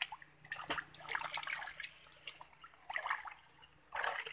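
Wet mud squelching and slapping as it is pressed and packed by hand, with a little water trickling.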